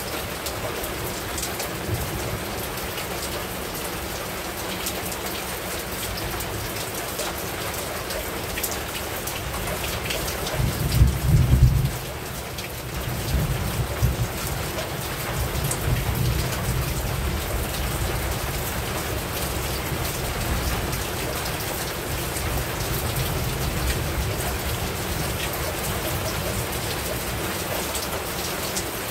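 Heavy rain falling steadily on a rooftop, with a low rumble of thunder about eleven seconds in that rolls on for several seconds.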